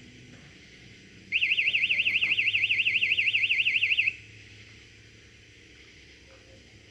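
Electronic carp bite alarm sounding a rapid warbling tone, rising and falling about eight times a second, for nearly three seconds before it stops: the signal of a fish taking the bait and running with the line.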